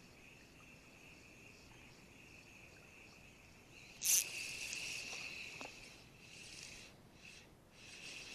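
Steady high-pitched insect chirring throughout. About four seconds in, a sharp swish as an ultralight spinning rod is cast, followed by line hissing off a Ryobi Ultra Power 1000 spinning reel, then softer on-and-off swishing as the reel is worked.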